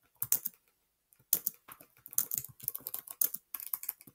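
Typing on a computer keyboard: a few keystrokes, a short pause, then a quick, steady run of keys from about a second in.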